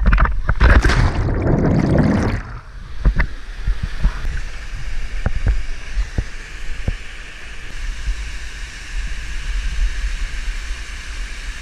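Canyon stream water rushing, loud and churning with splashing and knocks for the first two seconds or so, then a steady rush with a few scattered knocks.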